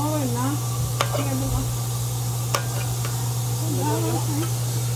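Vienna sausage pieces sizzling in tomato sauce and sofrito in a metal pot while a metal spoon stirs them, the spoon clicking against the pot twice. A steady low hum runs underneath.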